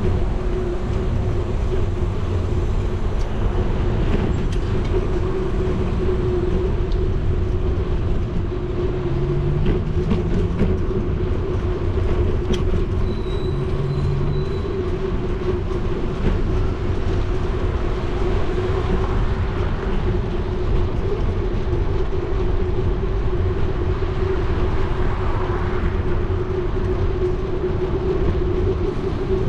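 Steady rolling rumble of a bicycle riding along a paved cycle path, picked up by a GoPro riding with it: tyre and road noise under a constant low hum.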